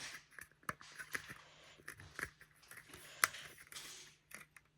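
Irregular small clicks and taps of plastic model train car parts being handled and pressed into place on a hopper car kit, with one sharper click a little after three seconds in.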